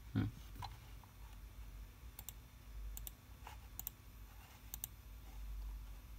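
Faint clicks of a computer mouse, a few spaced about a second apart, some in quick pairs, with a short low thump at the very start.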